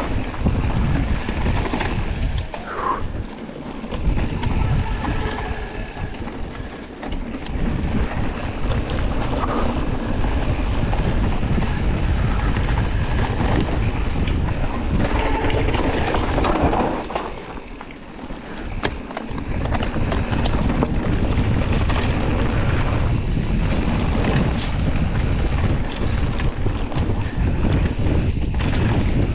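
Wind rushing over a helmet or body-mounted GoPro's microphone during a fast downhill mountain-bike run on dirt, with scattered clicks and knocks from the bike over rough ground. The rush eases off briefly twice, a few seconds in and a little past halfway, where the riding slows.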